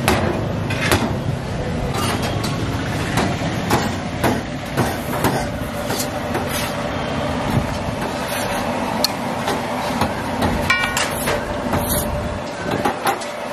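Irregular sharp knocks of a steel cleaver chopping grilled chicken pieces on a steel counter, and the clatter of cooking at an iron griddle, over a steady low street rumble.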